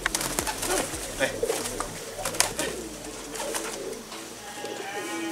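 Domestic pigeons cooing, with several sharp wing claps and flapping from a pigeon held in the hands.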